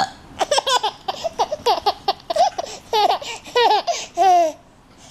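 A five-month-old baby laughing in a run of short, high-pitched bursts, each falling in pitch, ending with a longer laugh near the end.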